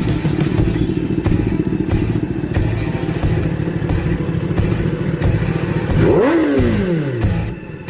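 Kawasaki ZX-10R inline-four running through an Austyn Racing exhaust: a steady idle, then one quick throttle blip about six seconds in, the pitch rising sharply and falling back to idle within about a second.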